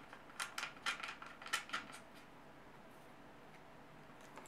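Several light metallic clicks and taps in the first two seconds, from a small tool working screws on the Air Arms S410 air rifle's action.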